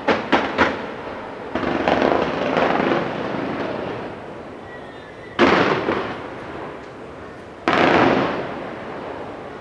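Aerial fireworks display: a quick string of sharp bangs at the start, then a stretch of dense crackling and rumbling bursts. Two big booms follow, about five and a half and eight seconds in, each trailing off over about a second.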